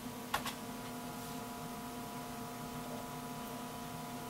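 A keyboard key is pressed, two short clicks about half a second in, followed by a steady hum of several constant tones from the running PC and CRT monitor as a DOS program loads.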